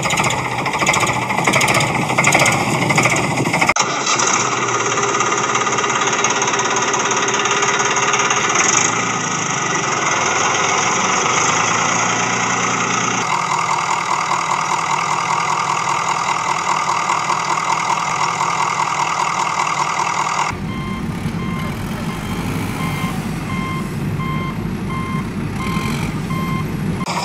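Vehicle engine sounds running and revving, switching abruptly to a different engine sound three times. In the last few seconds a reversing alarm beeps about twice a second over the engine.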